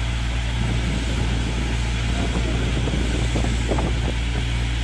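Steady low hum of a fire engine running its pump, under the hiss of a foam hose spraying onto a burning car.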